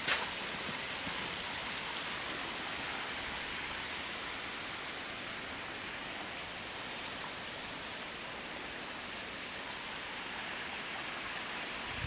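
Steady, even outdoor hiss of forest ambience. There is a sharp click right at the start, a few faint ticks, and a short high chirp about six seconds in.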